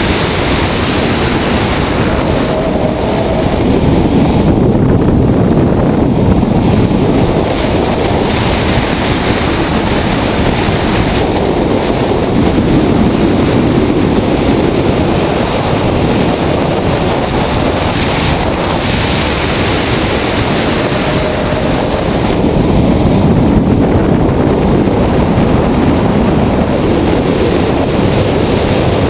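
Wind rushing over a hood-mounted camera's microphone on an all-electric 1995 BMW M3 race car at speed, mixed with tyre and road noise, with no engine note. The rush swells louder three times.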